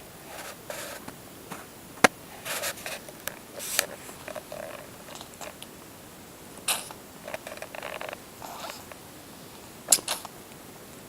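Kitten sneezing strangely: a string of short, sharp sneezes and snorts at irregular intervals.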